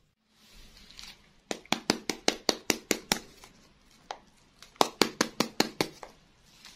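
Light rustling, then quick runs of sharp taps on small foil-wrapped cardboard candy boxes: about ten taps in a second and a half, a pause, then about seven more.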